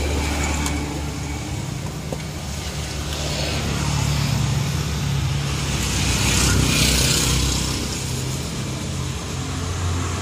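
Road traffic: a steady low engine hum, with vehicles passing that swell loudest about four and seven seconds in.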